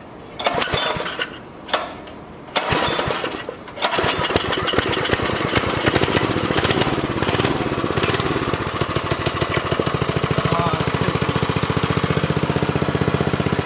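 Briggs and Stratton 5 hp single-cylinder flathead engine being cranked in three short bursts. It catches about four seconds in and runs with a steady, even firing beat, which slows a little toward idle near the end.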